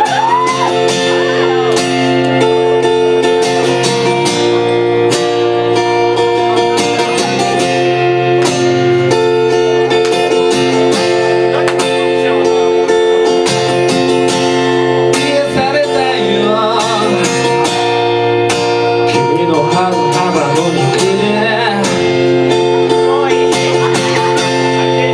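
Live band music: guitar chords ringing steadily over drums, with regular drum hits throughout.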